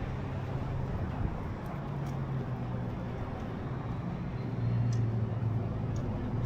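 Road traffic: a motor vehicle's engine hums steadily and grows louder about four and a half seconds in.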